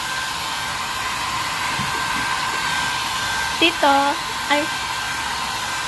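A hair dryer blowing steadily, with a thin constant whine over the rush of air. Two short high cries cut in about two thirds of the way through.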